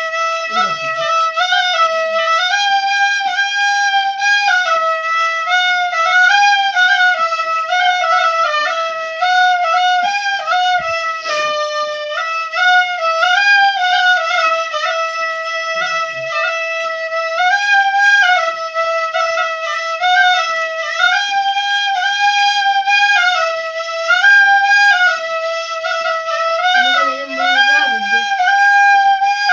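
Flute-like instrumental melody: a single line of notes playing a short phrase over and over without a break.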